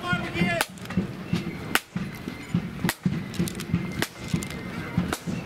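Marching band's drums beating time in step: a sharp stick click about once a second over a softer low beat about twice a second.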